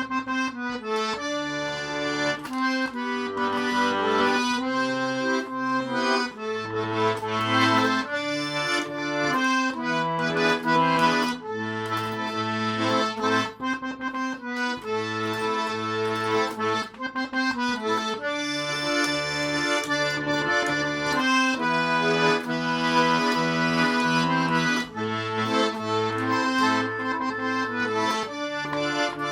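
Garmon (Russian button accordion) playing a melody, with bass notes and chords from the left-hand buttons keeping a steady rhythm underneath.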